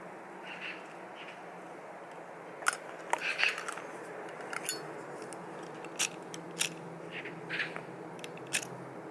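Close-up handling noise: a scattered series of small sharp clicks and short crisp crackles, clustered about three seconds in and recurring near the middle and the end, over a steady low hum.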